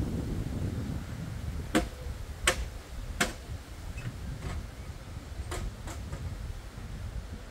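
Three sharp knocks about two-thirds of a second apart, then a few fainter ones, over the low rumble of strong wind on the microphone.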